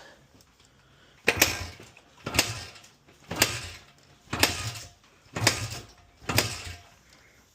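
Honda CRF100F's single-cylinder four-stroke being kick-started: six kicks about a second apart, each turning the engine over briefly without it firing. No knocking or clicking on the strokes, with the timing gear bolts freshly tightened.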